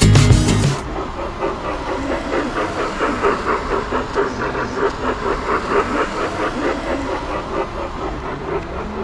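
Miniature railway train running along its track, a steady, evenly repeating clatter of wheels on the rails.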